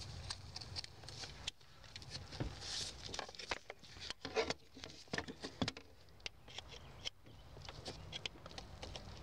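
Irregular small clicks, knocks and scraping as a manual gear shift lever is pressed down and twisted into its retainer in the floor of a 1992 Toyota pickup, a hard fit that takes a lot of effort. A sleeve rustles against the microphone throughout.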